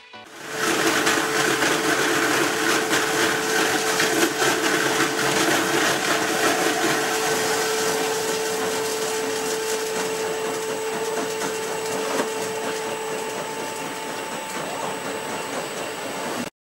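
Industrial fruit-mash processing machine running: a steady mechanical whir with a constant whine running through it.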